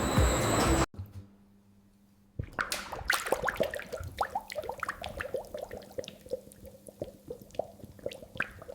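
A loud steady machine-like noise cuts off abruptly about a second in. After a brief quiet, rapid, irregular plops and drips of liquid follow, several a second, through to the end.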